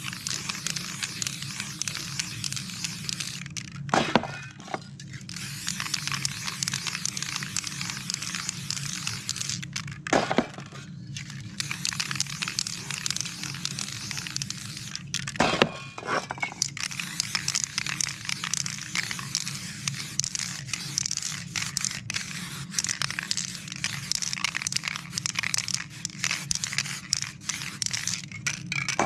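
Aerosol spray paint cans hissing in long bursts as paint is sprayed on in sweeping circles. The bursts are broken by short pauses with a sharp knock, about 4, 10 and 16 seconds in. A steady low hum runs underneath.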